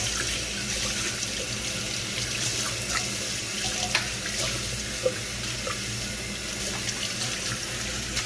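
Kitchen tap running steadily into a stainless steel sink, the stream splashing over blender parts being rinsed by hand, with a couple of light knocks partway through.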